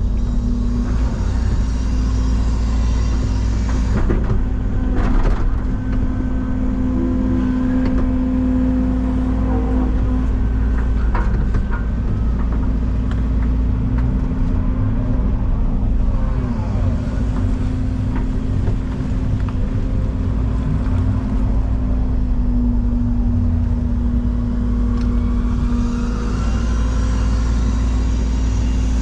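Excavator's diesel engine running steadily as it digs, with a few knocks in the first half.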